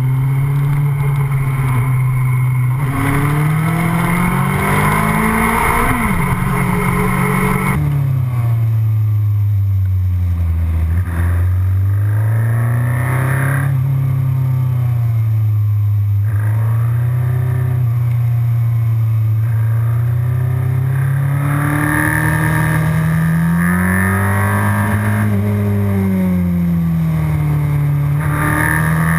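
Sports motorcycle engine heard from on board at speed, its pitch rising and falling repeatedly as the rider opens the throttle and rolls off through bends, with wind rush on the microphone. The sound changes abruptly about eight seconds in.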